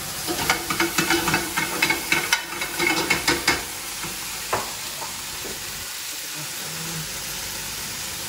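Bacon and mushrooms sizzling in a frying pan while a metal utensil stirs and scrapes against the pan in quick strokes for the first few seconds. After that comes a steadier frying sizzle, broken by one sharp clack about four and a half seconds in.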